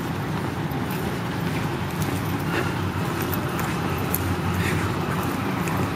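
Steady low rumble of city-centre background noise, like distant road traffic, with a few faint scattered ticks.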